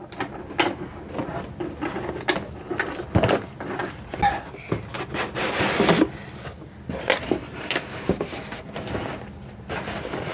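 Cardboard toy box being opened and handled: a string of irregular taps, knocks and rustles, with a longer scraping swish about five to six seconds in.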